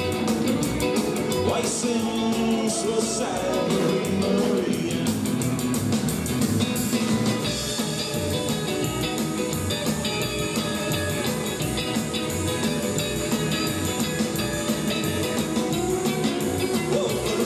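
Upbeat rockabilly music with singing, guitar and drums, keeping a steady dance beat.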